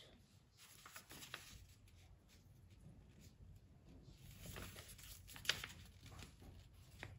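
Faint rustling and creasing of a sheet of paper being folded and pressed flat by hand, with a sharper crinkle about five and a half seconds in.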